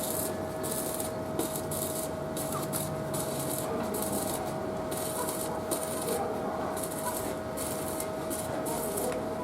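Construction-site work noise: repeated hissy scraping strokes, about two or three a second, over a steady machine hum.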